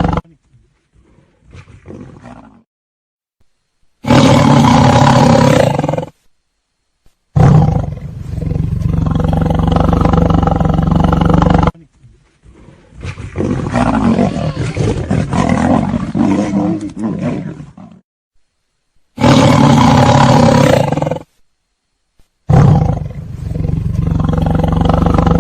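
Lion roaring: about five long, loud roars, each two to five seconds, separated by brief silences.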